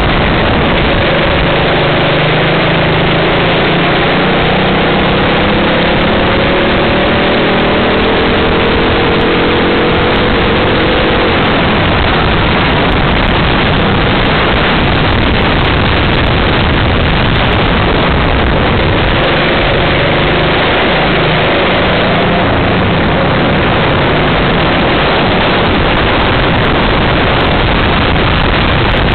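Racing kart engine heard from on board, its note rising as the kart accelerates, first for several seconds from about a second in and again a little after halfway. A steady rush of wind and road noise over the small camera's microphone nearly covers it.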